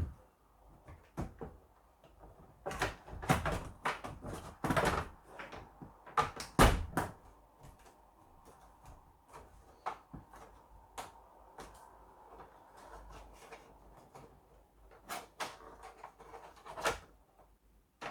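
Plastic clicks, knocks and scrapes of an Acorn RISC PC case slice being lowered and seated onto the base unit, bunched in a busy stretch a few seconds in and again near the end, the loudest knock a little before the middle.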